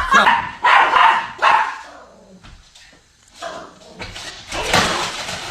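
A dog barking about four times in quick succession, followed after a short lull by a rushing noise from about four seconds in.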